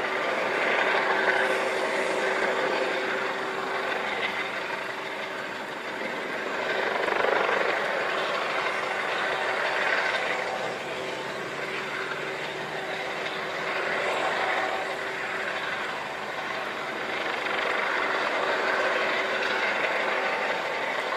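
Coast Guard HH-65 Dolphin helicopter hovering over water: rotor and turbine running with a steady whine, swelling and easing a few times.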